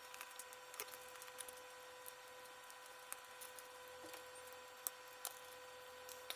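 Faint, scattered clicks and taps of plastic welding goggles being handled and fitted together, over a steady faint hum.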